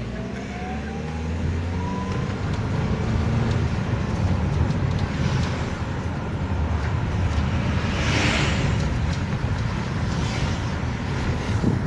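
Motor vehicle on the move: a steady engine and road rumble, with a whine rising in pitch over the first couple of seconds as it speeds up, and a brief rush of noise about eight seconds in.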